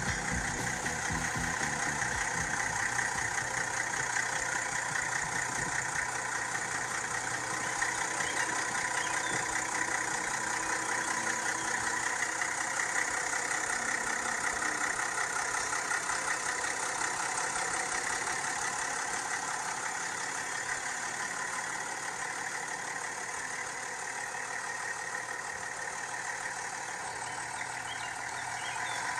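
Güldner G 35S tractor's 2.3-litre three-cylinder diesel engine (Güldner 3L79) idling steadily.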